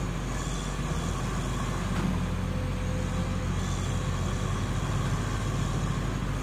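Diesel engine of a Caterpillar hydraulic excavator running steadily under load as the machine digs and swings its boom.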